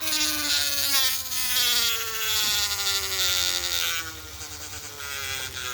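A small siren wailing, a buzzy sound whose pitch slides steadily downward. It grows fainter about four seconds in.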